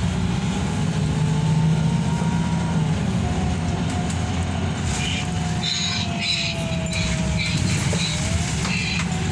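Inside a 2018 Higer diesel city bus under way: the engine's steady drone with a thin drivetrain whine that rises, drops about three seconds in, then slowly falls. Light rattles and squeaks from the cabin come in over the second half.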